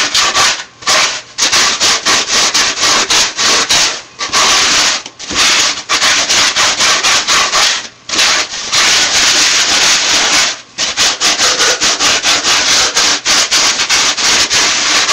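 60-grit sandpaper gloves rubbed hard over a Styrofoam block: loud, harsh scratchy sanding in quick back-and-forth strokes, with some longer unbroken stretches and a few brief pauses.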